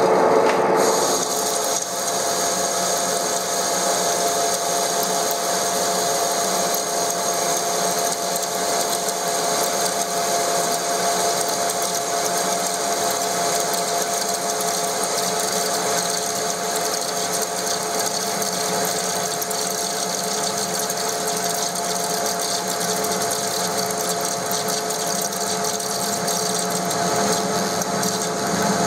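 TOS SN63B lathe under a turning cut on a steel wheel hub, a carbide insert cutting steadily. The machining noise holds even throughout, with a constant whine from the running machine.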